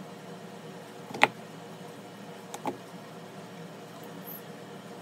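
Chunks of solid coconut oil being handled and added to a plastic measuring jug on a kitchen scale: one sharp knock about a second in, then two faint taps, over a low steady hum.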